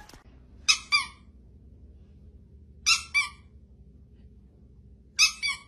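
A rubber squeaky toy squeezed three times, each squeeze giving a pair of short high squeaks, about two seconds apart.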